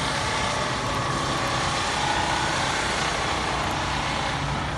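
An engine idling steadily, a constant low hum with no changes in speed.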